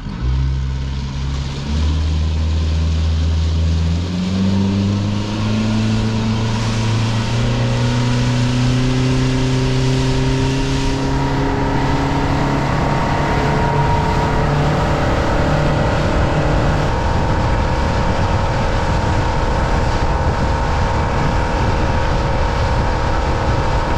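A boat's outboard motor throttling up, its pitch climbing in steps over about the first twelve seconds as the boat gets under way. It then runs steady at speed under a constant hiss.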